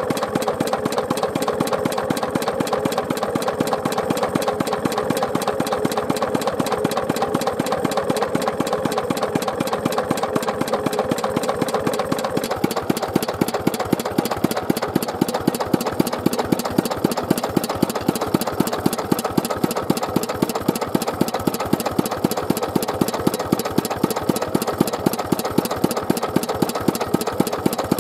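Kubota Universe KND6C stationary engine running steadily with a fast, even beat. About halfway through, with its valve cover opened, the ticking of the valve gear comes through sharper and louder.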